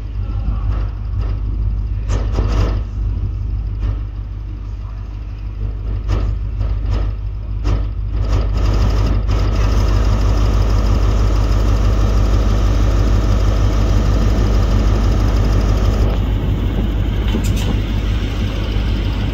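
Northern Class 156 Sprinter diesel multiple unit running slowly over pointwork, its diesel engine rumbling steadily with scattered clicks and clacks of wheels over the points. The engine grows louder from about eight seconds in as the train draws close and passes.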